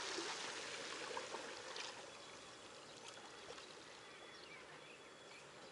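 Gentle seawater lapping and trickling against shoreline rocks, louder for the first couple of seconds and then fading to a faint wash.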